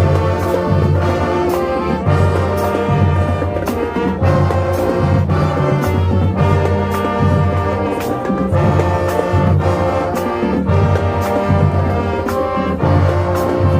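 High school marching band playing a loud brass tune, trumpets and trombones over a steady beat of drums.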